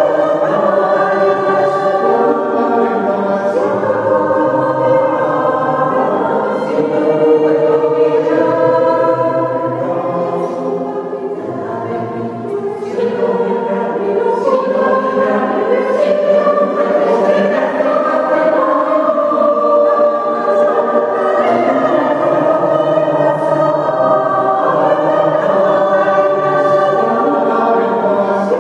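Mixed choir of men's and women's voices singing in harmony, sustained and continuous. It grows softer around ten seconds in and swells again about thirteen seconds in.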